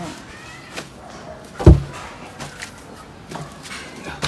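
Large plastic drum thudding against concrete steps as it is hauled up a stairway. One loud low thump comes a little before halfway, with lighter knocks and scrapes around it.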